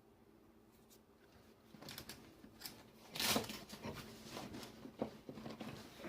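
Rummaging in a fabric tool bag and handling tools: irregular rustling with sharp clicks and knocks, starting about two seconds in and loudest around the middle.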